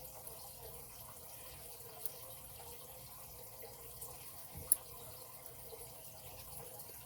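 Lock pick and tension wrench working the wafers of a padlock: a faint steady hiss with a few small sharp clicks, the loudest a little under five seconds in.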